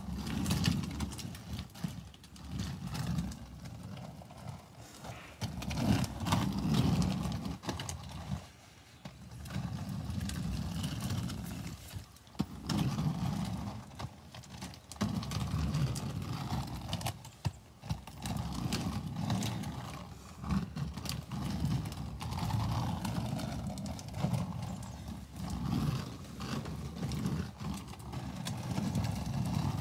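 Quad roller skate wheels rolling on rough asphalt: a gritty rumble that swells and fades again and again as the skater strides and turns.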